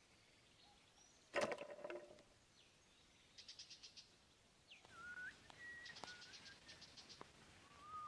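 A propped plastic crate trap drops shut with one sharp clattering thud about a second and a half in. Then bird calls follow: quick trills of high chirps and short whistled notes.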